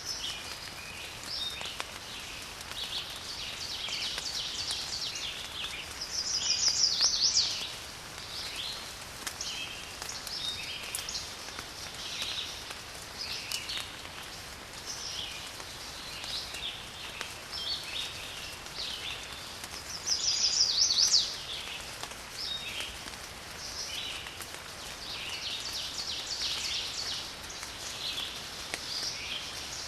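Steady rain hiss with garden birds chirping over it in short, frequent calls. Twice, about a quarter and two-thirds of the way through, a louder rapid trill lasts about a second and a half.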